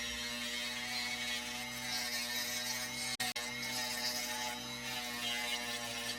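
Small high-speed rotary tool (Dremel) running steadily while sanding opal, its pitch wavering slightly as it is pressed onto the stone. The sound drops out for a moment about three seconds in.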